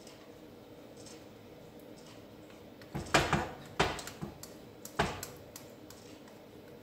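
A spoon knocking and scraping against a stainless steel saucepan while batter is stirred: a few quiet seconds, then a run of sharp knocks, about six in three seconds.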